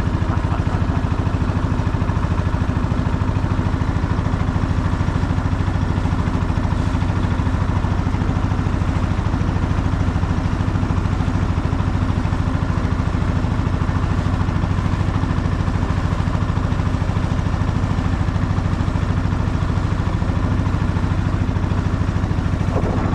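Small boat's engine running steadily, an even low hum and fast regular chug at an unchanging pitch while the boat is under way.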